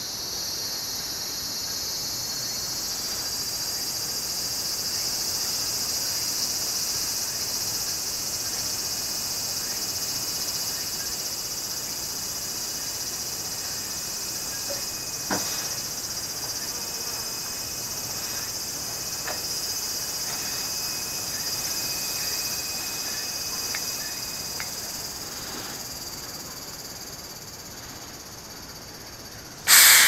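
Steady high-pitched insect chorus, with a single click about halfway. Near the end, a sudden loud hiss of refrigerant gas escaping from a car air-conditioning gauge hose as it is released, slowly dying away.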